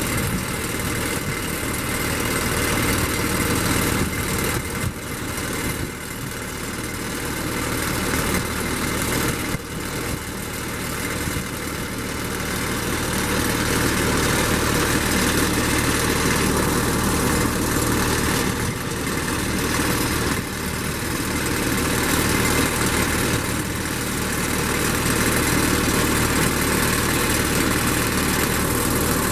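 An engine running steadily with a low, even drone, a little louder in the second half.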